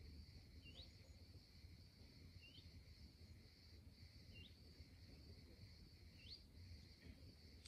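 Near silence: a faint bird repeating a short rising chirp four times, about two seconds apart, over a steady faint high hiss and a low hum.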